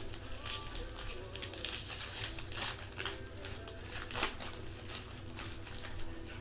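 Foil wrapper of a Panini Playbook football card pack crinkling as it is handled and opened, in a string of short crackles.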